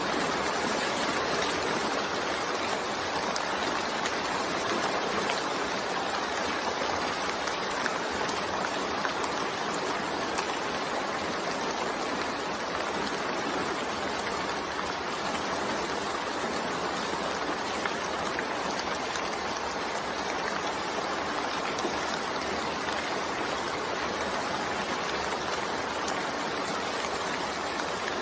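Steady, even rainfall, a constant hiss of drops with no breaks or changes.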